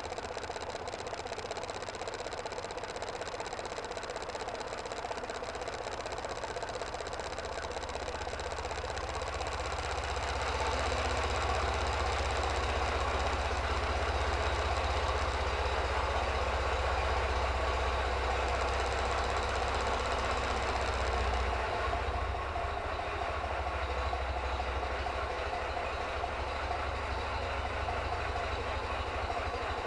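Narrowboat's engine running steadily as the boat motors through a low concrete culvert. It is louder through the middle stretch inside the culvert and eases off near the exit.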